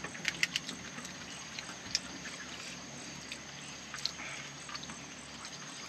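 Eating sounds: scattered sharp clicks and smacks of chewing and handling food, a few close together early on and then single ones, over a steady background hiss.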